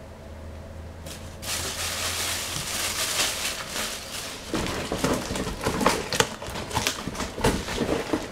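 Packaging rustling and crinkling as it is handled and searched through. It starts about a second in and gets busier from about halfway, with many sharp, irregular crackles and small knocks.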